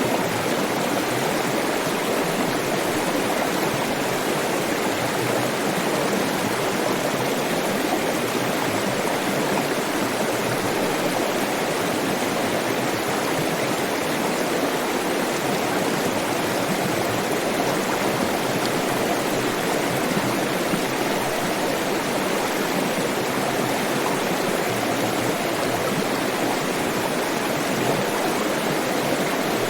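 Water flowing in a stream, a steady rushing and splashing with no change in level.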